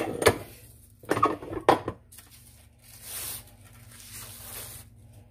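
Cast-iron tortilla press knocking a few times as its plate and handle are worked, then the crinkle of the plastic sheet as a freshly pressed masa tortilla is peeled off it.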